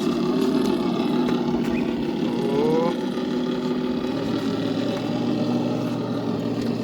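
Electric RC rock crawler driving slowly over rocks, its motor and gears giving a steady whine. A short rising vocal exclamation comes a little over two seconds in.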